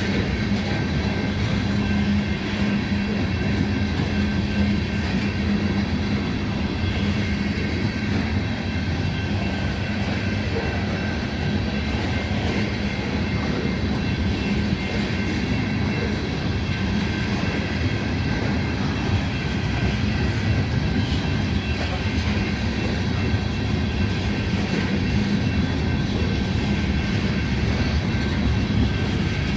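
Long freight train of ethanol tank cars rolling past, a steady even rumble and rattle of steel wheels on rail with faint steady ringing tones above it.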